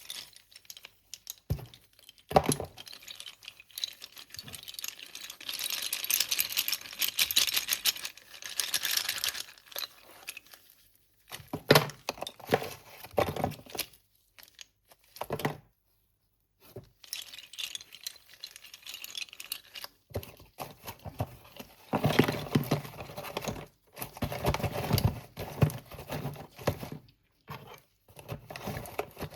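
Close-up crisp crackling, crinkling and clicking in bursts with short pauses, from slate pencils and their packet being handled and snapped, with a few sharp single knocks midway.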